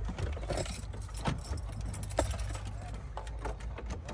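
Small metallic clicks and rattles of tools and parts being handled, over a steady low hum.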